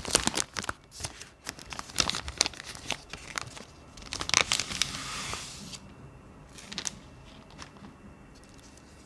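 Plastic or paper packaging crinkling and rustling as it is handled and pulled apart, with a loudest crinkling tear about four to five seconds in. After that only a few faint clicks remain.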